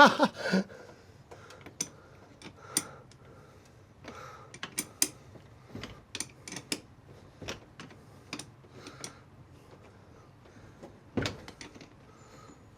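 Irregular small clicks and knocks of a hand tool tightening a car battery terminal clamp, a few at a time with short pauses between.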